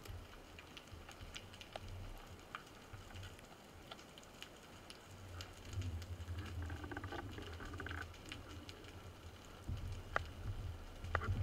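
Underwater ambience picked up through a camera housing: a steady scatter of small clicks and crackles over a low rumble of water moving past the housing, which swells about six seconds in and again near the end.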